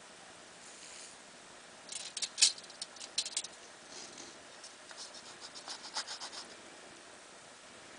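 Light scratching and clicking from hand work with bus wire on the panel, in two quick clusters, one about two seconds in and one about five seconds in.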